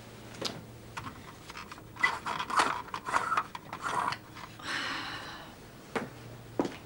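A person's heavy breathing, with a few small knocks and some rustling and scraping of things being handled.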